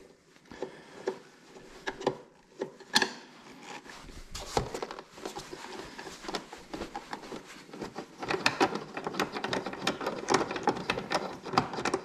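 Phillips screwdriver turning a screw out of the side plate of a MotorGuide Xi3 trolling motor's mount: irregular small clicks and scraping of the driver tip and screw, sparse at first and busier in the last third.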